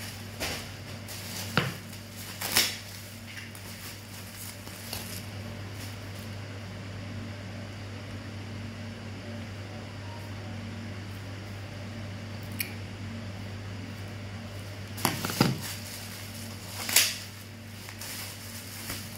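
Handling noises from unboxed items: a few short clicks and rustles, two near the start and a cluster about fifteen to seventeen seconds in, over a steady low hum.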